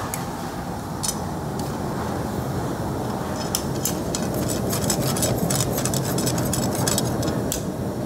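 Metal spatula and tongs scraping and clinking against a steel karahi wok as the chicken curry is stirred, in a quick run of clicks from about three and a half to seven and a half seconds in, over a steady low roar.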